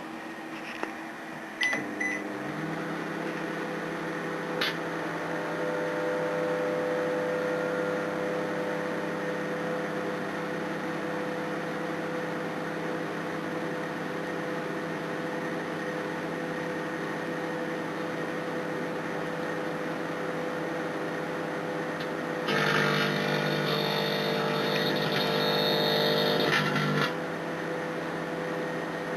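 LG microwave oven starting with two short beeps about two seconds in, then running with a steady electrical hum. Near the end a louder, harsher buzz joins for about four and a half seconds and cuts off suddenly.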